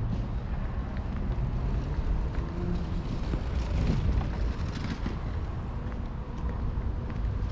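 Outdoor city ambience on a walk: a steady low rumble with a faint haze of distant activity and scattered small ticks, swelling slightly about halfway through.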